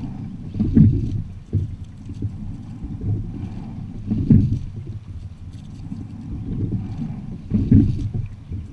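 Quad sculling shell under way: a surge of oar and water noise with each stroke, three strokes about three and a half seconds apart, over a steady low rumble.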